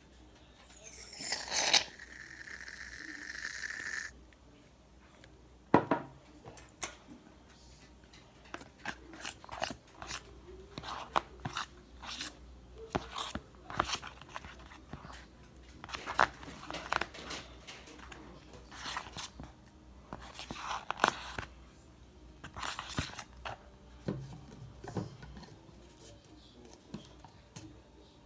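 Slime being mixed with dish soap: irregular sticky crackles, squishes and clicks. Near the start there is a hiss that lasts a couple of seconds.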